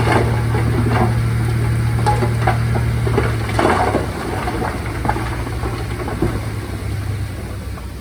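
Heavy diesel earthmoving machine's engine running, with irregular metallic clanks and knocks. The engine drone eases off about three and a half seconds in.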